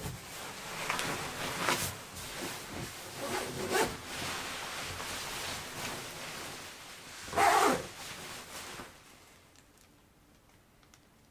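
A run of uneven rustling and scraping noises, like gear being handled, with the loudest about seven and a half seconds in, then dying away.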